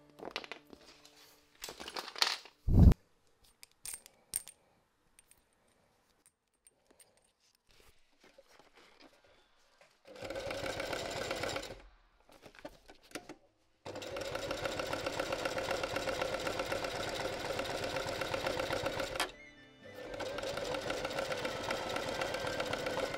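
Electric sewing machine running in three stretches of steady stitching with short pauses between, sewing a nylon webbing tab with a metal D-ring onto tent fabric. Before it come a few knocks and clicks of tools being handled, the loudest a sharp thump about three seconds in.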